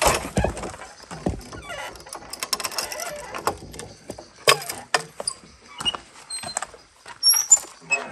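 A gate being opened and passed through: a series of clicks and knocks from the latch and the gate, the loudest at the very start and about four and a half seconds in.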